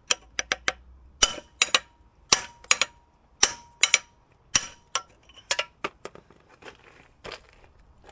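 Metal-on-metal clinks and taps: about fifteen sharp, ringing strikes, many in quick pairs roughly a second apart, as pins and tools on a mini excavator's digging arm are worked loose.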